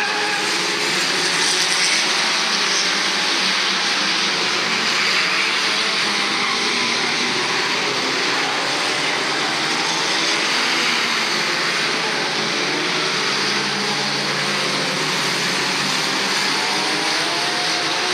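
A pack of old saloon stock cars racing around an oval track, many engines running at once, their pitches rising and falling as they accelerate and lift off.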